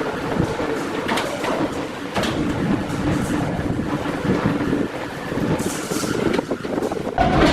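Woodworking plant machinery running steadily, with scattered knocks and clatter over a continuous hum.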